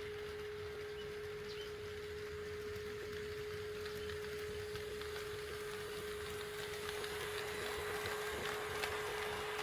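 A steady high-pitched hum, with the rolling sound of an HO-scale model train on the track growing louder from about seven seconds in.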